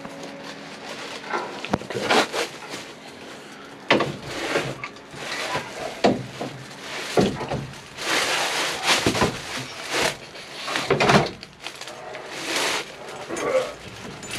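An IDIDIT steering column being worked back and forth in the firewall opening: irregular scraping and rubbing with a sharp knock about four seconds in. Its tight rubber O-ring seal binds on the opening and won't slide through, even greased.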